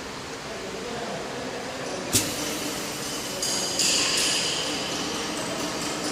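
Single-head aluminium profile cutting saw running with a steady hum. A sharp clack comes about two seconds in, then from about three and a half seconds a high-pitched cutting sound as the blade goes through the aluminium, loudest at first and easing off toward the end.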